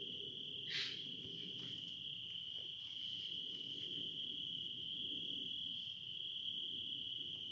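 Crickets trilling steadily at night, one continuous high-pitched chirring tone, with a brief scratchy rustle about a second in.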